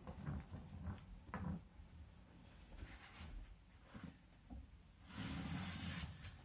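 Small knocks and clicks as a homemade wooden drawing device with string wound on it is handled and set on paper, then about a second of rushing scrape near the end as the string is pulled and the device runs across the paper.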